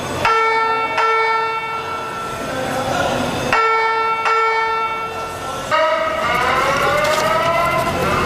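Building fire alarm sounding: a steady bell-like tone that comes on twice, near the start and again about three and a half seconds in, then a rising whoop tone near the end.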